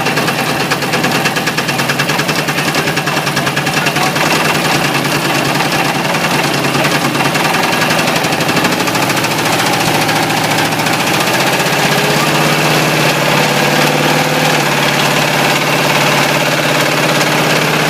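Ford 351 Windsor small-block V8 running with a fast, continuous metallic knock, the sign of its spun bearing.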